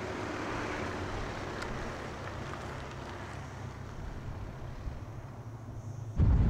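Volkswagen Tayron SUV driving past and away along a road, a steady rush of tyre and engine noise that is loudest in the first second or two and then slowly fades. A louder, different sound cuts in near the end.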